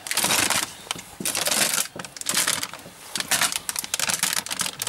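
A plastic potato-chip bag crinkling as it is handled and waved about, in a run of short rustling bursts.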